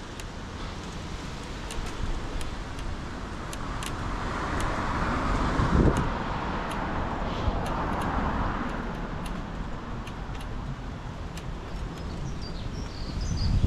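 Road traffic passing: vehicle and tyre noise swells, loudest about six seconds in, then fades. Steady low wind rumble on the microphone runs underneath.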